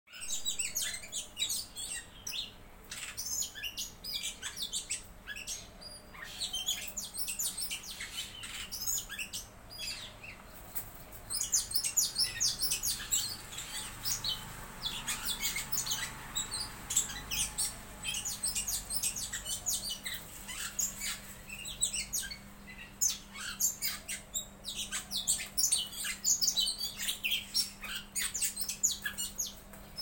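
Two small birds fighting, giving rapid, harsh chirping calls throughout, thickest about a third of the way in.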